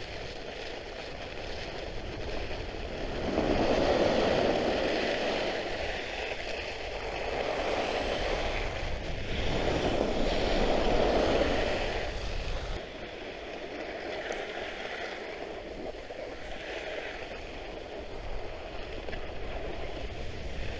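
Skis of a Trikke Skki hissing and scraping over the snow as the rider carves downhill, with wind rumbling on the microphone. It swells louder for several seconds in the middle, then drops back to a softer hiss.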